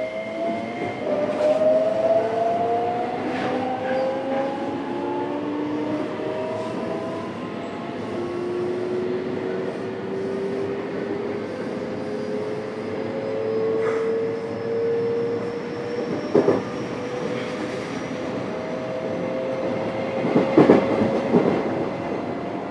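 JR West 321-series electric train running, heard aboard motor car KuMoHa 321-6: the traction motor whine, several tones together, rises slowly in pitch as the train gathers speed. A few knocks from the wheels come about two-thirds of the way through and again near the end.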